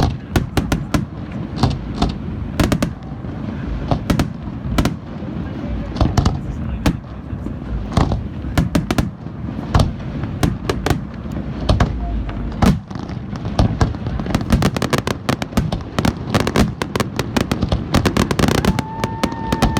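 Fireworks display: shells bursting with repeated sharp bangs and cracks, thickening into rapid crackling in the last several seconds. A short held tone sounds near the end and dips in pitch as it stops.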